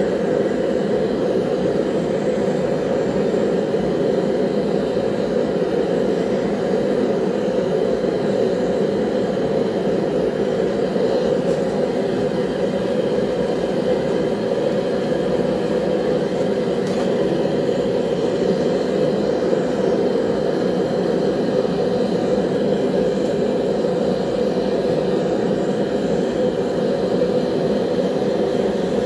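Forge running, a steady, even rushing noise that does not change, while blade steel is heated for annealing.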